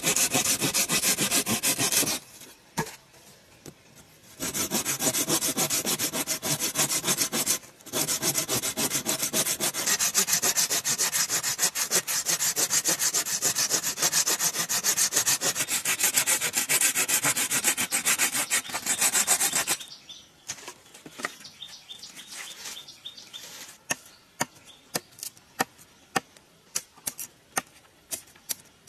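Steady rapid rasping of a hand tool working a bamboo pole, in three long stretches with short breaks, stopping about twenty seconds in. Scattered light ticks follow.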